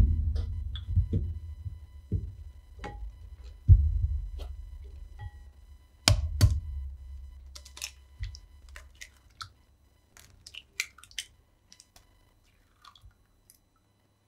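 Raw eggs knocked against a glass measuring jug and cracked open into it: a series of sharp knocks and cracks, the loudest two about six seconds in, followed by lighter shell clicks and crackles that thin out toward the end.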